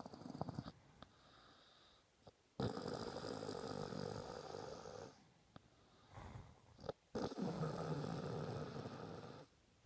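A sleeping person snoring: two long snores, each about two and a half seconds, with a pause of about two seconds between them.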